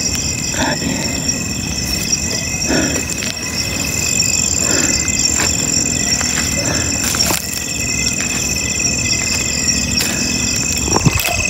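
Night insects such as crickets trilling steadily at several high pitches at once, one with a fast pulsing beat, with a few brief scuffs over it.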